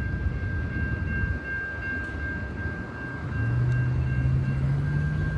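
Steady low rumble of a large passing vehicle with a constant high whine; about three seconds in a low drone starts and rises slightly in pitch.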